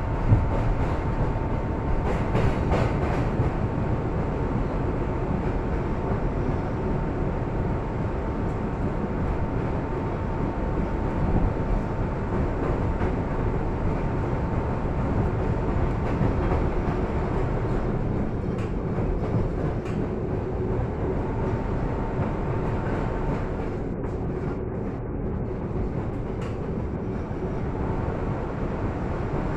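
R62A subway car running between stations: a steady rumble of wheels on rail, with a thin steady whine that fades out a few seconds before the end and a single sharp knock just after the start.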